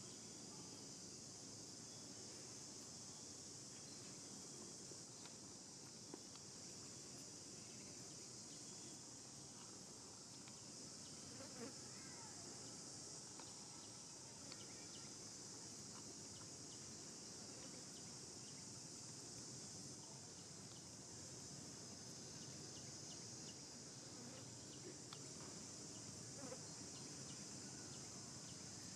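Steady high-pitched buzz of an insect chorus, with faint scattered clicks over it.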